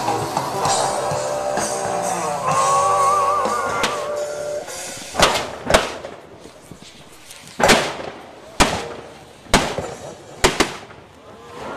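Rock music with guitar for about the first five seconds, then cut off. A run of about seven sharp, loud pyrotechnic bangs follows at irregular intervals, some close together in pairs.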